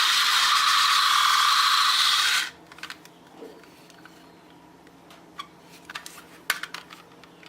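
Battery-operated toy gun making a loud, harsh rattling firing sound that cuts off suddenly about two and a half seconds in, followed by a few faint clicks.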